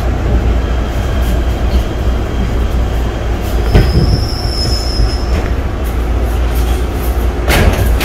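PATH train car rolling through an underground station, heard from inside the car: a steady low rumble of wheels on rail, with a brief high wheel squeal a little before the middle. There are two sharp clacks, one around the squeal and one near the end.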